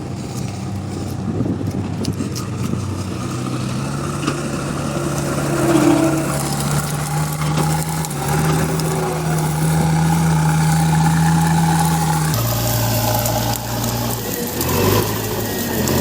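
JCB backhoe loader's diesel engine running. Its pitch rises about three seconds in and holds steady, then drops abruptly about twelve seconds in.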